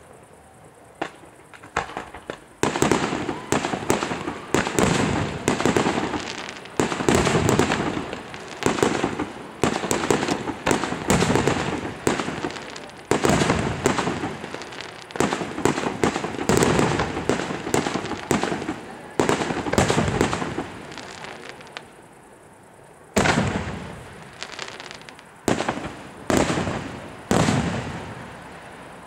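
Aerial fireworks shells bursting. After a quiet start with a few small cracks comes a rapid, dense run of loud bangs, then a short lull. Four more single bangs follow near the end.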